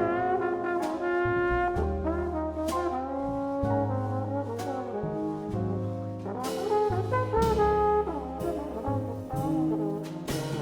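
Small jazz band playing live, led by a trombone whose notes slide between pitches over a bass line and drum cymbals.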